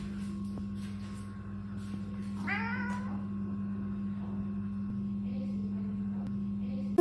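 A cat gives one short meow that rises and falls in pitch, about two and a half seconds in, over a steady low hum.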